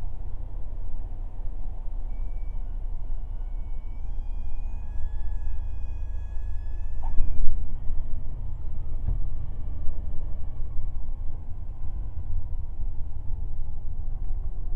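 Light aircraft's engine and airflow droning in the cockpit. A high, slightly rising warning tone, typical of the stall warning horn in the landing flare, sounds for about five seconds and cuts off with a thump about seven seconds in.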